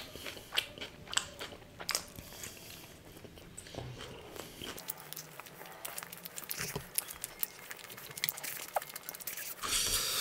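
Close-up chewing and biting: irregular wet mouth clicks and smacks as food is chewed. In the last half second there is a louder brief rustling noise.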